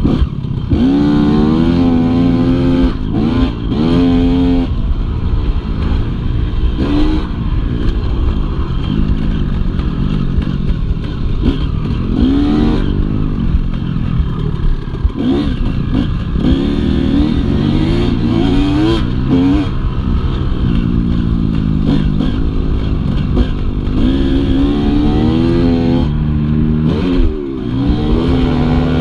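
Motocross dirt bike engine heard up close from the rider's own bike, revving up and dropping back again and again as it accelerates, shifts and slows around the track.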